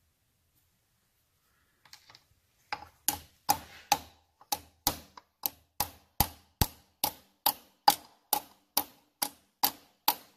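Hammer tapping a flat steel drift to drive a hollow locating dowel into a Triumph 650 crankcase: a steady run of sharp metallic taps, about two or three a second with a short ring on each, starting about three seconds in.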